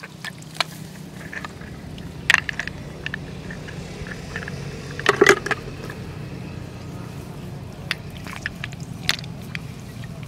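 Scattered wet squelches and scrapes of hands working in mud, the loudest about five seconds in, over a steady low hum.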